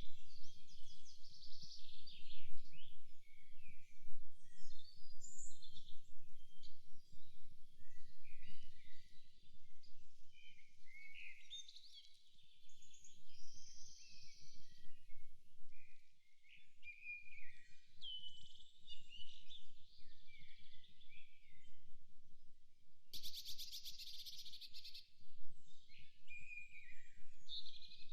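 Several songbirds singing and calling in a forest, short overlapping chirps, whistles and trills, with one fast rattling trill about two-thirds of the way through. Under them a low, uneven rumble that drops away briefly twice.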